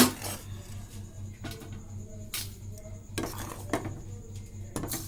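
A metal utensil scraping and knocking against a kadhai while dry-roasted rice flour is scooped out of it: a sharp knock at the start, then scattered scrapes and clinks about a second apart. A faint steady low hum runs underneath.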